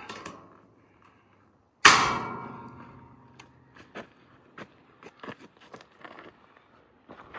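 A loud metallic bang about two seconds in from sheet metal being struck or dropped, ringing as it fades over about a second. A scattering of light clicks and knocks follows.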